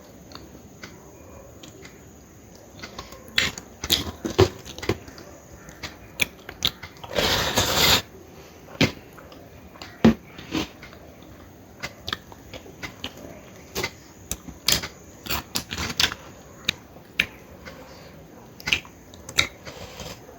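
Close-up eating sounds: chewing and mouth smacks, with many short, sharp clicks and one louder noisy burst lasting under a second about seven seconds in.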